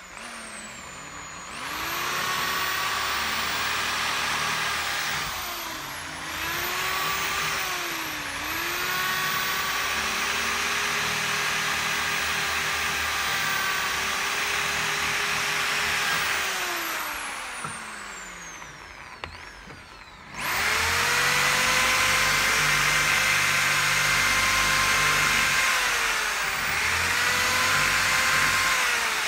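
Die grinder with an abrasive bob spinning inside the bore of a turbocharger housing, a steady whine over a hiss. It spins up, dips in pitch twice as it bites into the metal, and winds down. It starts again about twenty seconds in at a slightly higher pitch and dips once more near the end.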